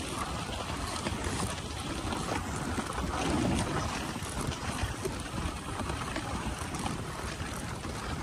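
Dog sled gliding along a packed-snow trail: steady hiss and rumble of the runners on the snow, with wind buffeting the microphone.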